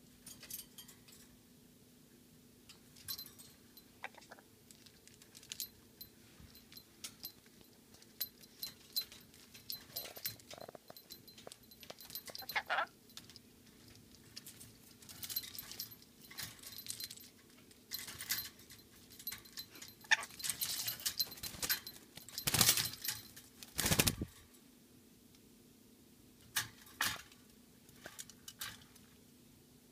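Black-capped lory clambering about its wire cage and water dish: short, scattered clinks, rattles and scrabbles, with splashing at the dish. The noise comes in clusters and is loudest in a dense burst a few seconds long about two-thirds of the way through.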